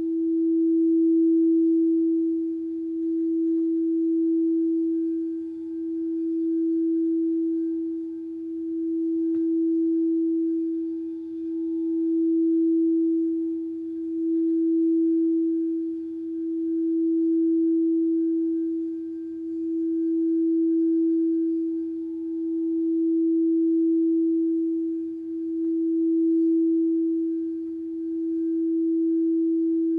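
A singing bowl sustains one long, steady tone that swells and eases about every two seconds, with faint higher overtones above it.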